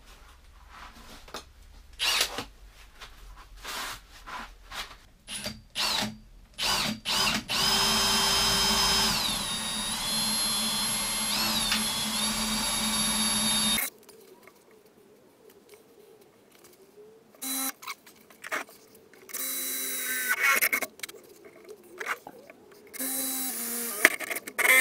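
Power drill boring access holes into the ribs of a Land Rover 110 rear door, ready for cavity wax to be injected. A few clicks and knocks of handling come first, then one long run of about six seconds whose whine dips twice as the bit bites, and several short bursts of drilling near the end.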